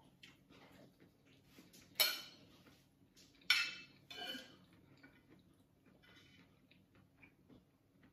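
Metal spoon clinking and scraping against a ceramic plate while eating, with three sharper clinks about two, three and a half and four seconds in amid quieter small scrapes.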